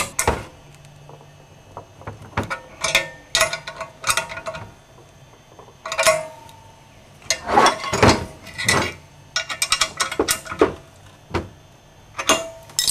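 Socket ratchet and wrench clicking and clinking on the steel flange bolts joining a catalytic converter to its exhaust pipe as the 9/16 nuts are tightened. Irregular metal clicks come in bunches, and one has a short ring about six seconds in.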